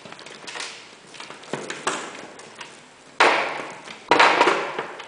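Tangled power supply cables being pulled apart by hand: plastic connectors clicking and knocking together, with two louder rattling clatters about three and four seconds in.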